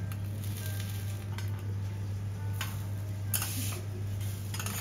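Food sizzling on a hot teppanyaki griddle, with short louder surges of sizzle about two and a half seconds in, just after three seconds and near the end, over a steady low hum and a few light metal clicks.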